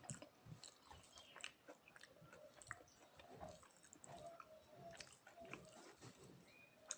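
Faint chewing of a mouthful of food, with irregular small wet clicks and smacks of the mouth.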